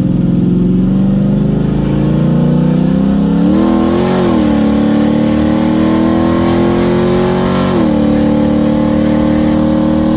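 1969 Camaro SS's 454 big-block V8 accelerating, heard from inside the cabin. The engine note climbs in pitch and drops as it shifts up about four seconds in and again near eight seconds, then holds steady at cruising speed.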